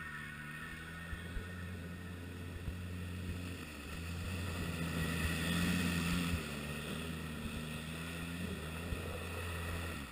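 Polaris RZR 800 S side-by-side's twin-cylinder engine running at a steady pitch as the buggy drives through a shallow gravel riverbed. It grows louder around the middle, along with water spray as it splashes through, and there is some wind on the microphone.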